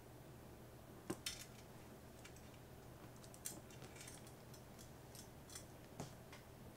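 Faint, scattered clicks and scrapes of a metal spoon in a metal lunch box as rice is scooped up and eaten. The sharpest clicks come a little after one second, at about three and a half seconds, and at six seconds, over a steady low room hum.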